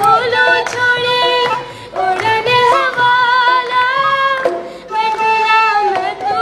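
A small child singing a Hindi song in a high voice, holding wavering notes in phrases with short breaks, over a faint musical backing.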